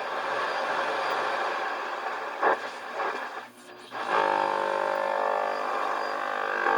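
Shortwave static and hiss from a Knight Kit R-100 receiver being tuned between stations, dropping away briefly about three and a half seconds in, then a steady buzzing signal of several held tones coming in over the noise.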